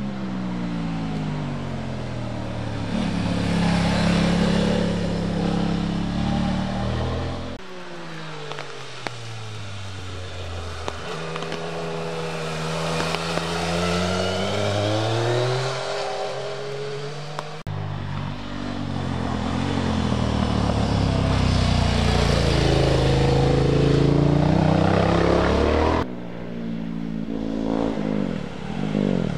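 Rally motorcycles passing through a bend one after another, each engine revving up and down through gear changes, the pitch dropping as it slows into the corner and climbing as it accelerates away. The sound cuts abruptly three times between passes.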